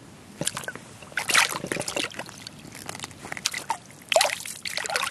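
Water sloshing and splashing in bursts in a drilled ice-fishing hole as a crappie is lowered in and released, with some dribbling.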